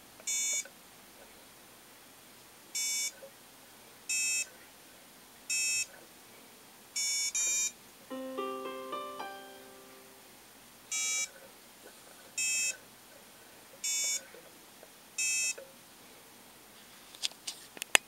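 Short electronic beeps, about ten of them at uneven intervals, each about half a second long, set off as a hand touches the strings of a violin wired with contacts to an Arduino. Around the middle comes a run of lower, overlapping tones that fade out, and a few sharp clicks sound near the end.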